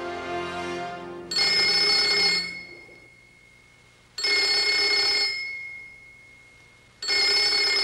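Electronic desk telephone ringing: three ring bursts about a second long each, spaced nearly three seconds apart. The last notes of background music fade out in the first second.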